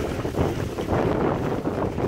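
Strong, gusty wind buffeting the microphone, over choppy lake water lapping around a small boat.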